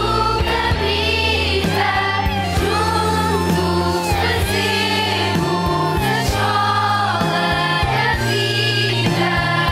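Music: choir-like singing over steady instrumental backing with sustained bass notes.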